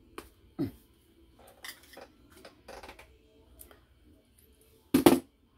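Small metallic clicks and scrapes of pliers working at solder wire pulled from a reel, then a loud sharp double snap about five seconds in as the pliers bite through the solder.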